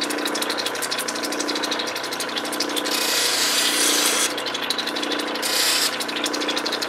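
Lapidary cabbing machine running, a crystal opal being ground on a wet 280-grit resin wheel: steady motor hum with a fine rapid ticking. Two louder hissing stretches of grinding, one about three seconds in lasting over a second and a short one near six seconds.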